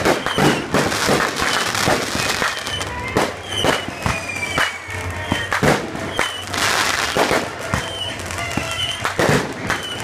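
Aerial fireworks bursting over a lake: a quick run of bangs and crackles, thickest a little past the middle.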